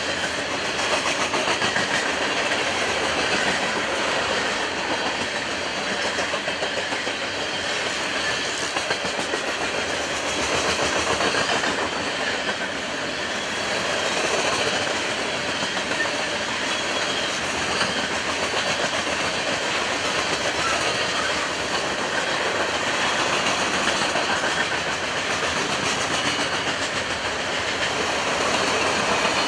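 Freight train of coal hopper cars rolling past, with steel wheels clacking on the rails and a steady rumble that holds at an even level throughout.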